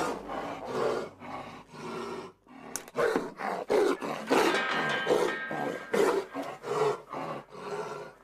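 A young Siberian tiger cub growling in a quick series of short, harsh bursts, about two a second, with a brief pause about two and a half seconds in. The cub is agitated as he is provoked and darted.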